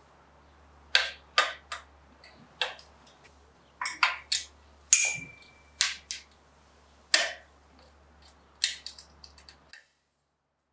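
Irregular sharp clicks and knocks of tools and parts being handled while assembling a bike, about a dozen in all, one with a short ringing tone about five seconds in. The sound cuts off abruptly near the end.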